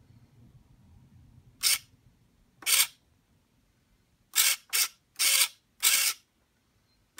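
Hobby RC servo driving a single-servo dual-hinge flap linkage, whirring in six short bursts as it swings the flap down and back up.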